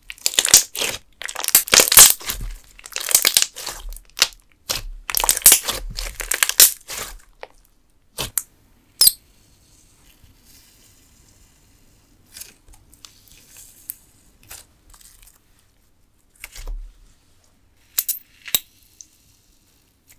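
Clear slime packed with jelly cubes squeezed and crushed by hand: a dense, loud run of crackling, squelching pops for the first seven seconds or so, then a few sharp single pops and quieter scattered squishing.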